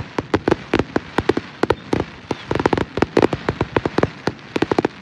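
Fireworks going off in a rapid, irregular run of sharp cracks and pops, several a second, like the crackling bursts of a busy display.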